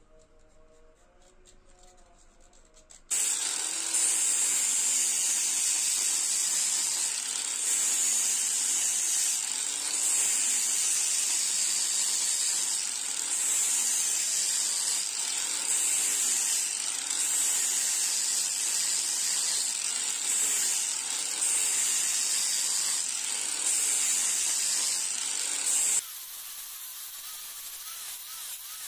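Angle grinder with a sanding disc grinding a wooden sickle handle: a loud steady hiss that starts suddenly about three seconds in and swells and eases every couple of seconds with each pass of the disc. Near the end it drops suddenly to a quieter hiss.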